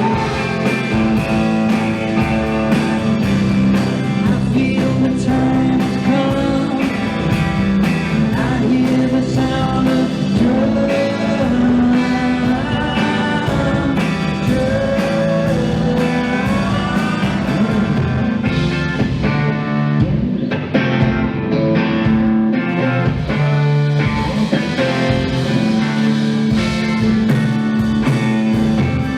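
Psychedelic rock band playing live: electric guitars, bass and a steady drum beat, with a singing voice over them.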